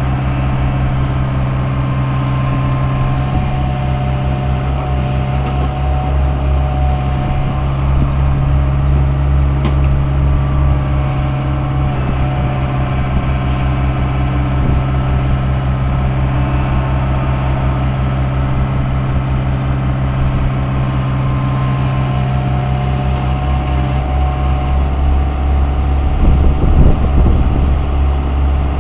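Daewoo 75V compact excavator's diesel engine running steadily while digging, with a steady higher tone over the low engine note. Near the end it gets louder and rougher, with irregular knocks.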